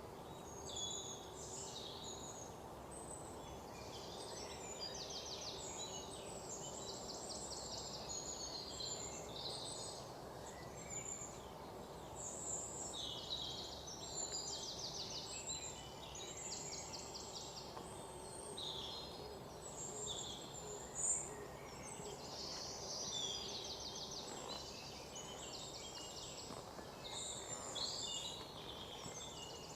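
Several birds chirping and trilling together in a morning forest chorus, many overlapping high calls with quick repeated-note trills, over a steady low background hum. One sharp, louder note about two-thirds of the way in.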